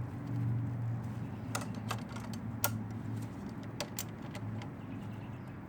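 Hand tools clicking and clinking against a nut and bolt as the nut is tightened down through a motorcycle brake rotor's floating bobbin: a handful of sharp, irregular metal clicks, over a steady low hum.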